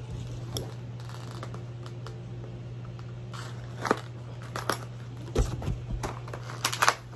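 Scissors cutting into a small cardboard box, with scattered short snips and crackles of the packaging being handled, mostly in the second half, over a steady low hum.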